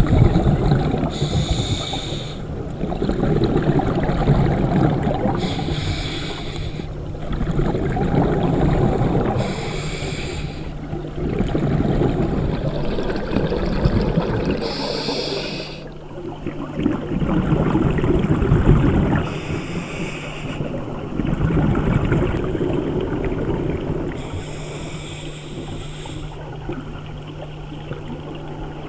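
Scuba diver breathing underwater through a regulator: a short hiss on each inhale, six times at about one every four to five seconds, each followed by the low rumble of exhaled bubbles. A faint steady low hum runs underneath.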